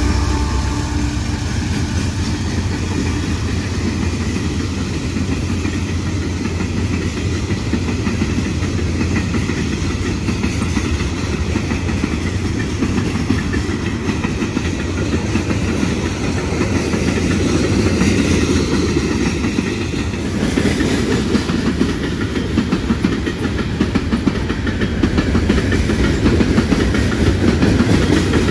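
Freight cars of a CSX coal train rolling past: a steady low rumble of steel wheels on rail with rhythmic clickety-clack, the clicks coming thicker over the last third.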